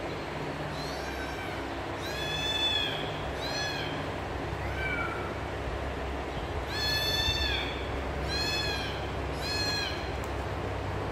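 A kitten meowing repeatedly: about seven high-pitched meows, two of them longer, drawn-out calls, over a steady low hum.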